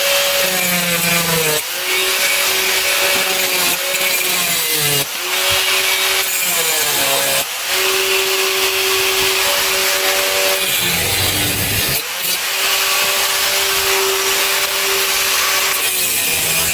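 Handheld power tool cutting metal bolts down shorter: a steady motor note with a harsh cutting hiss over it, the note dipping and breaking several times between runs of a few seconds each.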